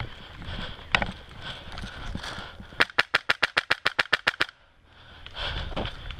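Airsoft gun firing a rapid string of about fourteen shots in under two seconds, after a single shot earlier on.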